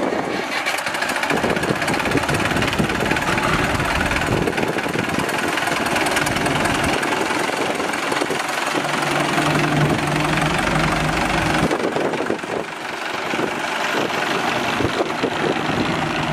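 HMT 5911 tractor's diesel engine running as the tractor drives across the field, a steady engine noise with a short dip in level about twelve seconds in.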